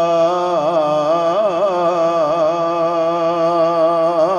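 A man's unaccompanied voice singing a naat, holding one long drawn-out syllable, with wavering turns in the pitch about a second in.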